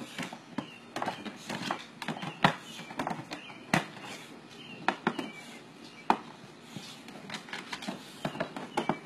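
Hard plastic kiddie pool being tugged by an English bulldog biting its rim, scraping and knocking irregularly against the doorway and the ground.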